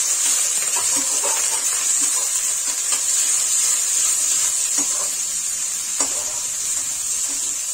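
Sliced onions and garlic sizzling in hot oil in a kadai, a steady loud hiss, as a slotted spatula stirs them with a few light scrapes against the pan. The onions have just gone into smoking-hot oil to fry.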